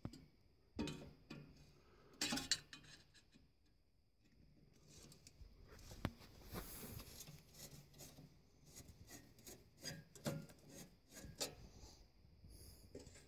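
Screwdriver working the small screws of a sealed-beam headlight's retaining ring: irregular scraping and rasping of the tip in the screw heads, with scattered clicks and knocks of metal.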